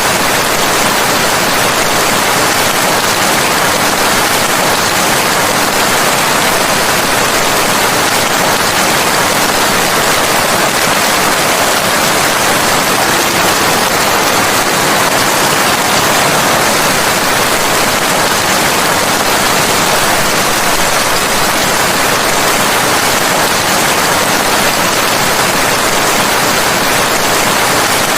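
Steady, heavy rain falling, an even unbroken hiss with no thunder or separate drops standing out.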